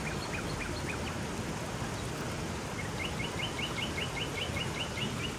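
A small bird calling with short, high chirps: a few notes in the first second, then a quick, even run of about a dozen from about three seconds in. Steady outdoor background noise runs underneath.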